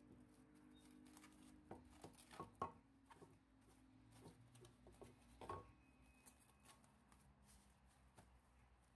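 Faint kitchen handling sounds: a scatter of light clicks and taps from utensils and dishes, the loudest few coming in a cluster a couple of seconds in and again around the middle, over a low steady hum.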